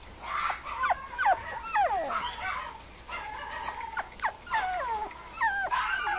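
Mame shiba puppy whining: a string of short, high whines that slide down in pitch, with a sharp click about three and a half seconds in.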